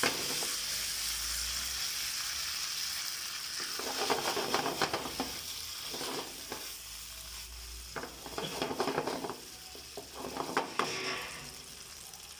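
Chicken in a cornflour-thickened chilli sauce sizzling in a pan, with a spatula stirring and scraping the pan in several short bouts, as the cornflour cooks through.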